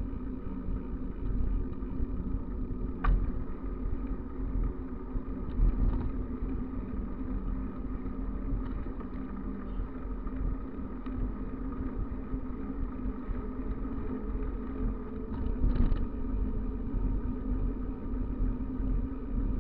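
Steady rumble of wind on the microphone and bicycle tyres rolling fast down an asphalt road, with a couple of short clicks.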